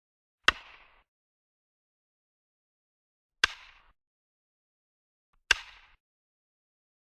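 Wooden baseball bat cracking against a ball three times, a few seconds apart, each sharp crack followed by a brief ring.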